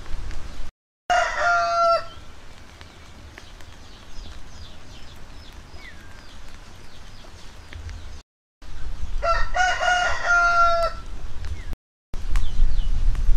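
A rooster crowing twice: one call about a second in and another about nine seconds in, each lasting about a second.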